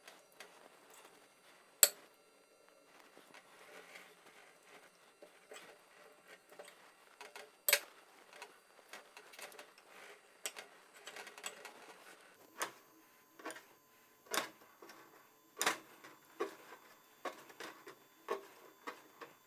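Chef's knife cutting raw octopus: the blade clicks and scrapes against a ceramic dish, with one sharp click about two seconds in, then chops on a small cutting board in a series of knocks about one a second in the second half.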